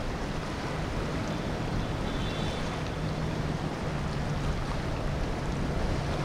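Boat engine running steadily with a low hum, under water wash and wind on the microphone.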